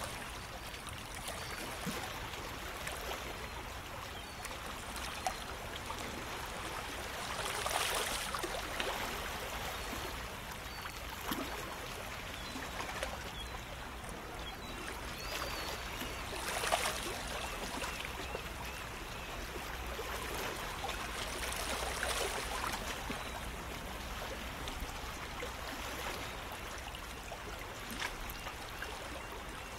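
Shallow water lapping and trickling among shoreline rocks, a steady wash that swells louder now and then, three times clearly.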